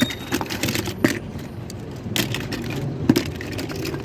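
Small die-cast toy cars clicking and clinking against one another as a hand rummages through a pile of them, with scattered irregular clacks and scrapes.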